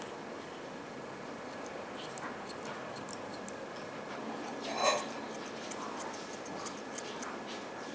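Grooming scissors snipping a Shih Tzu puppy's face hair: a run of quick, light metal snips, several a second, with one louder short sound about five seconds in.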